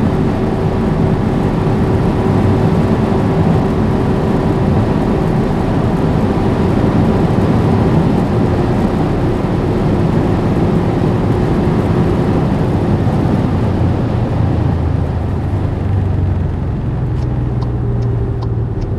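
Skoda Superb 4x4 driving at speed: steady engine drone under a loud rush of wind and tyre noise. In the last few seconds the hiss eases off and a low engine tone comes up.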